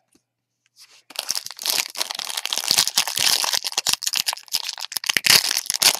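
Foil wrapper of a baseball card pack crinkling and crackling as it is handled, starting about a second in and continuing steadily.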